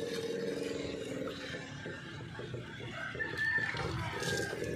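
A rooster crowing.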